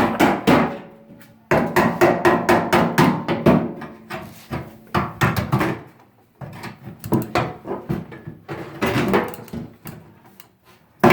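Rapid knocking, clanking and scraping of tools on the parts of a Panasonic inverter microwave oven as it is pulled apart for salvage. The sound comes in several bursts with short pauses between them.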